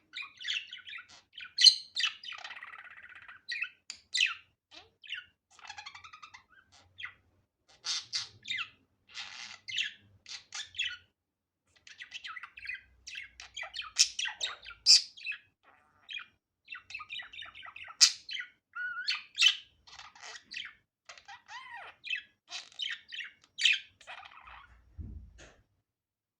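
Budgerigar chattering: a run of quick chirps, squawky calls and warbled phrases broken by short pauses. Near the end comes a low thump, and the sound cuts off.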